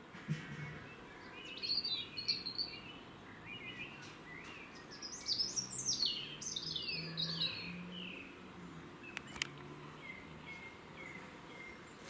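Birds calling: a run of high chirps and quick falling whistled notes, busiest in the middle, over a faint low hum.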